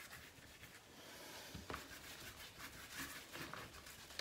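Faint scratchy brushing of a flat paintbrush dragging paint across paper, with a few light taps.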